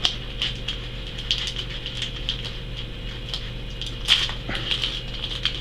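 Foil wrapper of a trading-card booster pack crinkling and crackling in the hands as it is worked open, with a sharper crackle about four seconds in.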